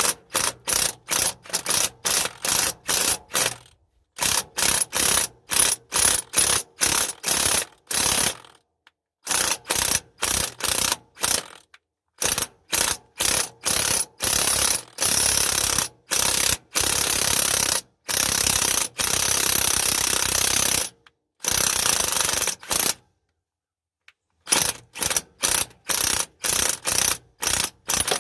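Cordless impact wrench hammering in many short bursts, with a few longer runs of a second or two in the middle, working at a broken bolt through a bolt welded onto its stub.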